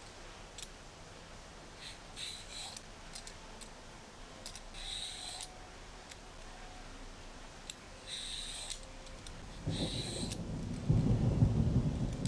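Vegetable peeler scraping the skin off a Korean radish in short separate strokes, a few seconds apart. In the last couple of seconds a low rumble is the loudest sound.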